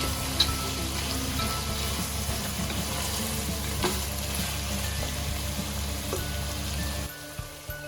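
Chicken cashew stir fry sizzling steadily in a hot pan, with a few sharp clicks. The sizzling stops about seven seconds in.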